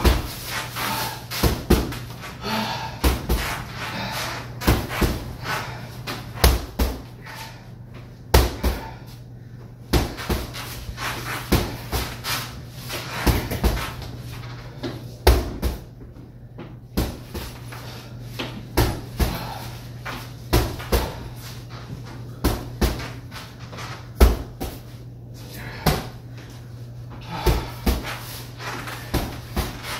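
Gloved punches thudding into a hanging heavy bag in irregular flurries, with short pauses between combinations, over a steady low hum.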